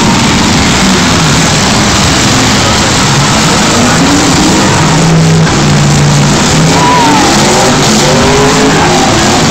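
Engines of several race cars running hard around the track, loud, their pitch rising and falling as they speed up and pass.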